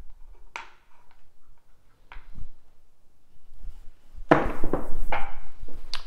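A pair of dice thrown down a craps table: a loud clatter about four seconds in as they hit the felt and the pyramid-rubber backwall, with several knocks before they tumble to a stop. A few light clicks come before the throw.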